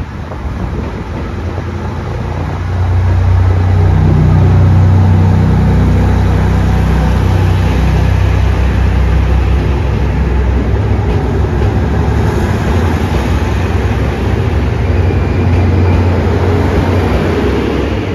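JR Shikoku 2700 series diesel multiple unit pulling out of the platform, its diesel engines running under power with a steady low drone that grows louder about three seconds in, along with the rush of the cars moving past close by.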